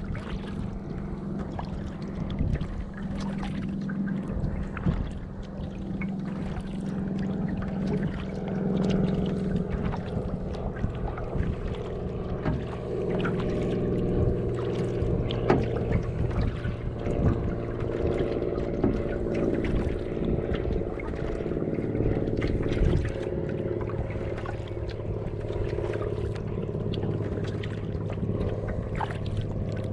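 Canoe moving across a lake: water lapping and splashing at the hull, with many small irregular splashes, over a steady low hum.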